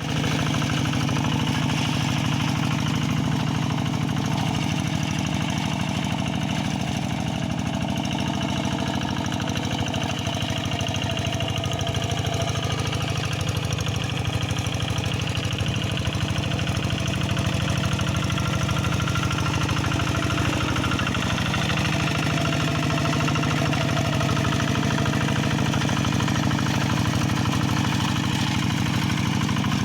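Kubota RD85 DI single-cylinder diesel engine of a Quick hand tractor running steadily with a fast, even chugging beat.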